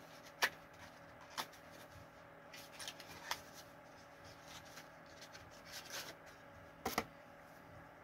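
Hands handling a tin of smoked mussels and its packaging: a few scattered sharp clicks and taps, the loudest about half a second in and about seven seconds in, over a faint steady hum.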